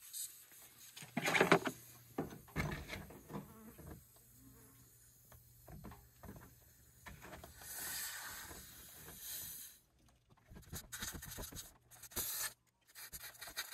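Irregular rubbing, scraping and scattered clicks of a tyre plug kit's reamer being worked into a puncture in a four-wheel-drive's tyre tread, loudest about a second and a half in.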